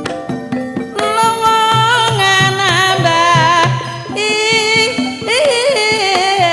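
A female sindhen singing long, wavering melismatic phrases over Javanese gamelan accompaniment with repeated low hand-drum strokes. The voice comes in about a second in, pauses briefly near four seconds, then returns with sweeping bends in pitch.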